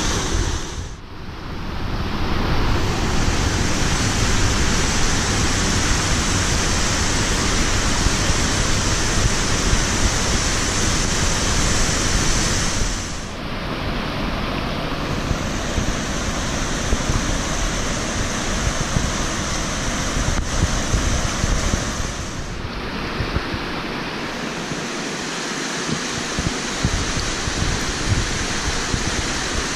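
White Horse Rapid, a Class III rapid on the Potomac River running high at a 6.9 ft gauge reading: a steady rushing of fast whitewater through a long train of standing waves. The sound dips briefly three times, about a second in, about 13 s in and about 23 s in.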